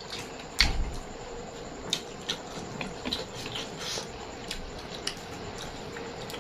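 Close-up eating sounds: irregular wet clicks and crunches of chewing and handling food, with one sharper knock and thump about half a second in.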